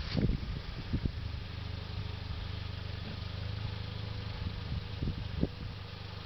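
Jeep Wrangler's engine running at a low, steady idle as it crawls down a rock slope. A few short knocks come in the first second and another about five seconds in.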